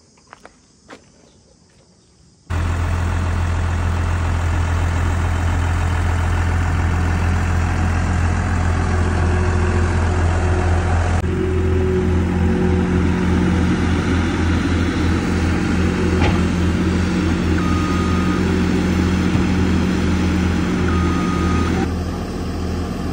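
A farm tractor's engine running steadily. It starts abruptly a couple of seconds in after a few faint clicks, and a few short high beeps sound near the end.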